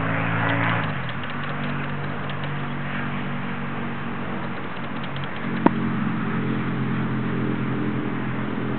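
A steady engine hum, its low drone dropping a little in pitch about a second in, with one sharp click a little past halfway.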